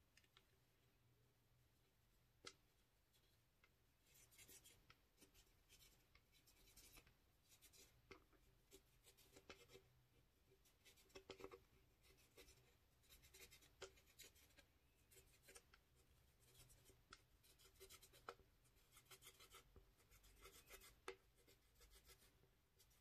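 Faint scratching and crumbling as a small pointed tool scrapes pressed eyeshadow out of a compact palette's pans, in quick runs of strokes with a few sharp clicks.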